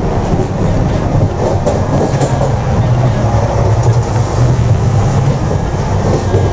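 Steady low rumble and rattle of a moving Duranto Express passenger train, heard inside the vestibule between coaches.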